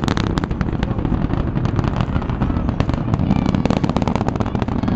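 Space Shuttle Discovery's solid rocket boosters and main engines at full thrust during ascent: a steady, deep rumbling roar shot through with dense, rapid crackling.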